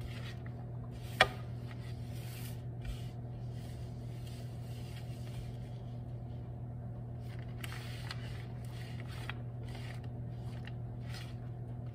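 French fries being laid out by hand on a metal baking sheet: faint scattered taps and scrapes, with one sharper click about a second in, over a steady low hum.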